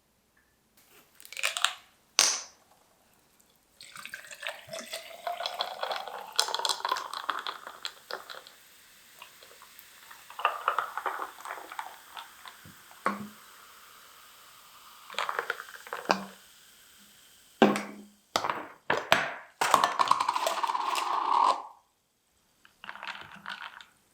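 Liquid poured into a container, its pitch rising as the container fills, with scattered clinks and knocks of kitchenware.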